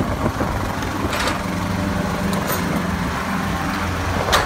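Truck engine idling with a steady low drone, with a sharp metal clank near the end as the shipping container's door locking bar is worked.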